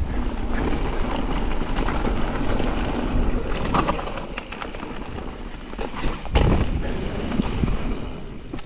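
Mountain bike descending a dirt and gravel trail: tyres rolling and crunching over loose stones under a steady low rumble, the bike rattling with short knocks over bumps. A harder knock about six seconds in.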